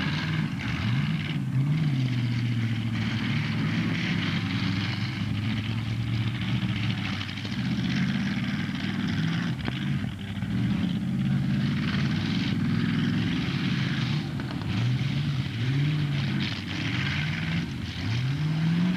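Demolition derby car engines running and revving, pitch rising and falling again and again, with a cluster of revs near the end.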